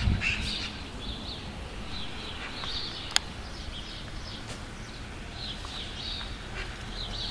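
Small songbirds chirping and trilling in short, repeated phrases, with a single sharp click about three seconds in.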